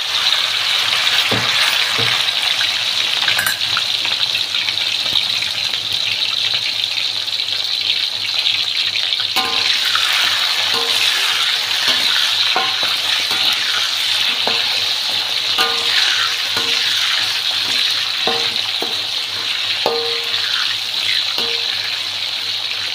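Chicken pieces sizzling steadily as they fry in hot oil in a metal wok. From about ten seconds in, a metal spatula stirs them, knocking against the wok with short ringing clinks.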